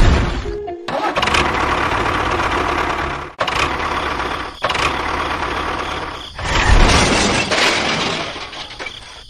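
Engine running with a loud, noisy sound, broken by several abrupt cuts every one to three seconds.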